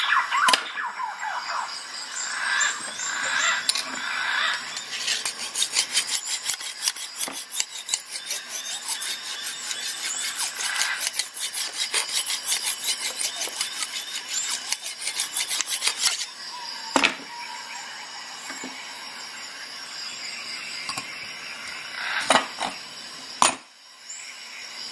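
Lansky guided-system sharpening hone scraped back and forth along a steel knife edge in quick strokes, several a second, stopping about sixteen seconds in. A few sharp knocks follow.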